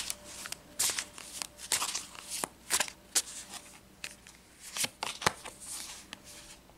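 Tarot cards being handled, a series of irregular sharp snaps and papery rustles that die away near the end.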